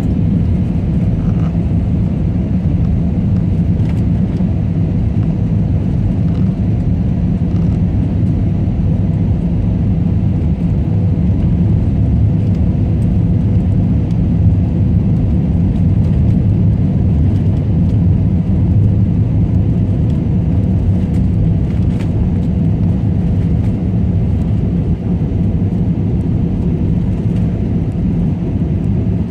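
Steady low rumble of an airliner's engines and rushing air heard inside the passenger cabin on final approach, with a faint steady hum above it.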